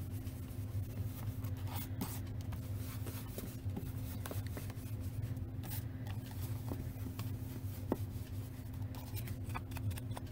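Blending brush rubbed in short, irregular strokes across the edges of cardstock, a soft scratchy brushing with small ticks, over a steady low hum.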